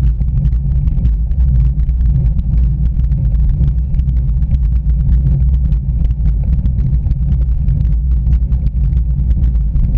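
Steady low rumble with many small irregular clicks from a bicycle-mounted camera on a slow uphill ride: road vibration carried through the mount, with wind on the microphone.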